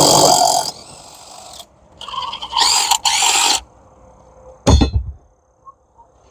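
Cordless impact wrench run in two short bursts, its motor whine rising in pitch on the second. A single sharp clunk follows about three seconds later.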